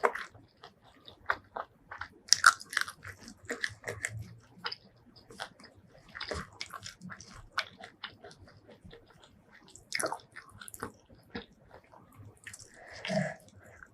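Close-miked eating: biting into and chewing crisp fried food, a run of sharp crunches and wet mouth clicks, busiest about two seconds in.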